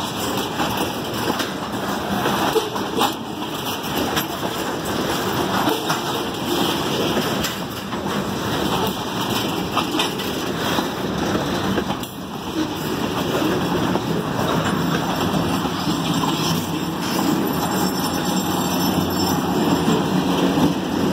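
Loaded tank cars of a freight train rolling past slowly in reverse, their steel wheels rumbling and knocking over the rail joints. In the second half a diesel locomotive's engine grows louder as the locomotives draw near.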